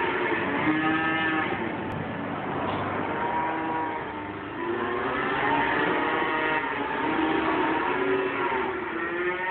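Many calves packed into a livestock truck's trailer mooing and bawling together, long calls that rise and fall in pitch and overlap one another without a break.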